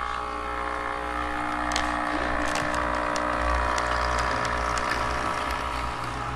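Model train locomotive's electric motor whining steadily as it runs along the track, with a few light clicks from the wheels and couplings.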